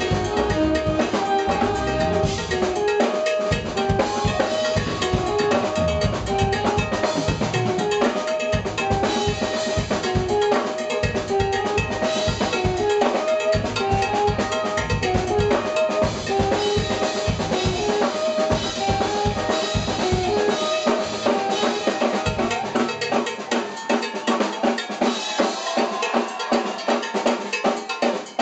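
Live jazz-fusion band playing: drum kit and hand percussion with a prominent cowbell under a repeating pitched riff. About three-quarters of the way through the low end drops out, leaving the drums and percussion playing on their own.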